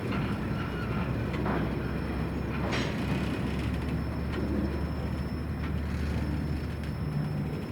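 A train running slowly past, with a steady low diesel rumble and scattered clicks and clanks from the wheels and cars, plus a brief hiss about three seconds in.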